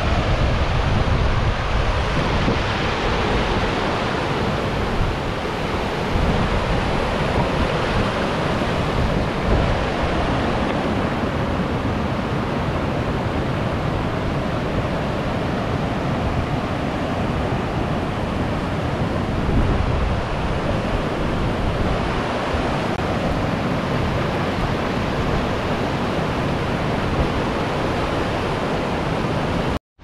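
Steady rush of a waterfall's falling water, with some wind buffeting the microphone; the sound cuts off abruptly near the end.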